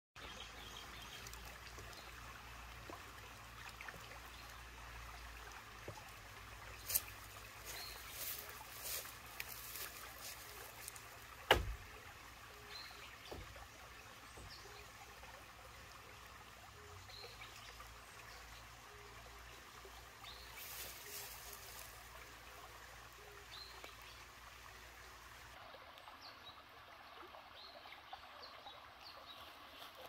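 Water trickling and running steadily along a small, shallow irrigation ditch. A few brief sharp knocks sound over it, the loudest about a third of the way in.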